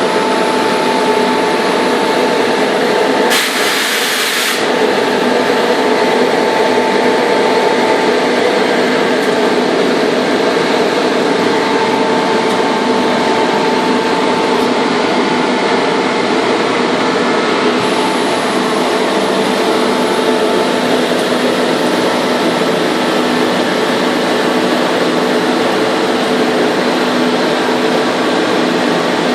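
Rotary screw air compressor running steadily with a constant hum and whine. About three seconds in, a brief hiss lasts about a second.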